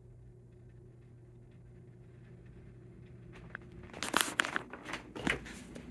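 1990 Encon Corinthian hugger ceiling fan's motor humming faintly and steadily on medium speed. About four seconds in, a run of sharp clicks and rustling handling noise comes in over it.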